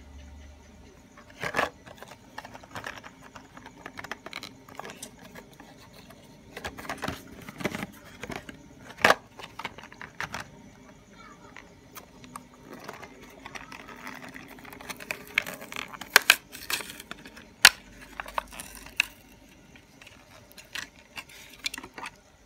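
Hands opening a Hot Wheels blister card: the clear plastic blister crackles and clicks as it is pried from the cardboard backing and the diecast car is pulled out. The sharp crackles come irregularly, with short pauses between them.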